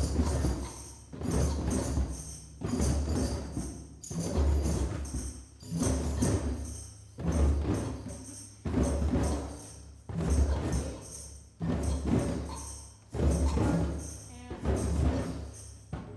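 A group of hand drums playing a slow heartbeat rhythm, a paired 'lub-dub' of low booms repeating about every second and a half, dying away near the end.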